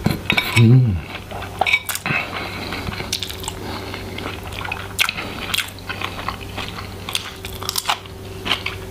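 A person chewing and crunching a mouthful of black-bean-sauce ramyeon with crisp vegetables, close to the microphone, with many small irregular crackles. A brief hummed sound comes about half a second in.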